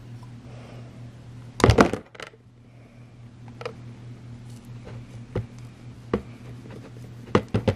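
Small metal pliers clicking and tapping against a dry erase marker's plastic tip while gripping the nib to pull it out. A quick cluster of clicks about two seconds in is the loudest part, followed by scattered single clicks, over a steady low hum.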